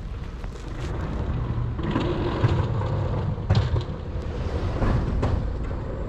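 Wind rumbling on the microphone, with a car on the snowy street growing louder from about two seconds in as it approaches and passes.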